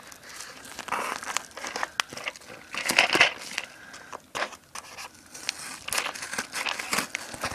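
A yellow padded mailer being handled and opened, with irregular crinkling and tearing rustles and small clicks. The loudest bout is about three seconds in.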